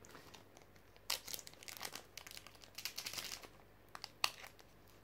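Foil wrapper of a Pokémon booster pack crinkling and tearing as it is pulled open by hand, in irregular crackles over a couple of seconds, then a single sharp click about four seconds in. The wrapper is not opening smoothly.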